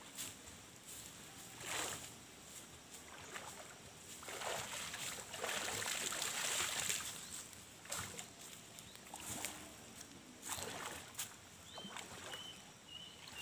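Shallow stream water splashing and sloshing around a man wading and hauling a fishing net through it. Scattered splashes, with a longer spell of churning splashes about five to seven seconds in.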